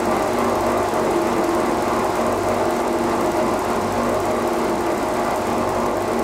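Clay pug mill running as it extrudes clay: a steady motor and gearbox hum.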